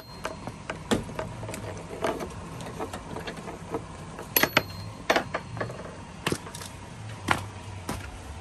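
Low steady hum of an idling old Ford Focus engine, under irregular sharp clicks and crunches close to the microphone from handling the cords and walking in snow.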